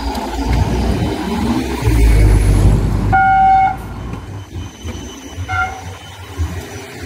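Supercapacitor tram arriving over a low rumble, then its horn sounds twice: a toot of about half a second some three seconds in, and a shorter one about two seconds later.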